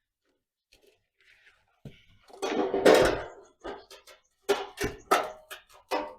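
Workshop handling noise: a clatter followed by a run of sharp, separate knocks and clicks, like metal pieces being picked up and set down.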